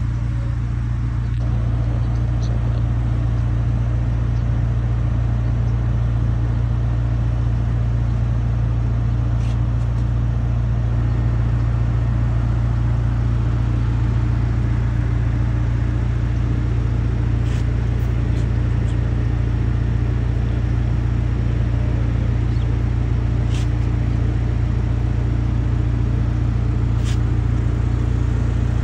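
Steady low hum of an idling engine, unchanging throughout, with a few faint clicks.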